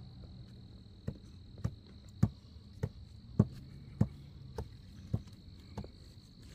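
Crickets trilling steadily. From about a second in, nine sharp knocks come at an even pace, a little over half a second apart, and they are the loudest thing heard.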